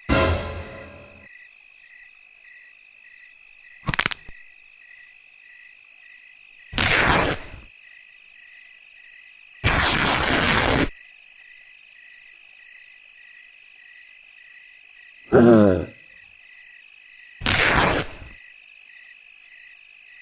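Steady night ambience of chirping crickets, a pulsing chirp about three times a second, broken by six loud added sound-effect bursts of about a second each; the fifth falls in pitch.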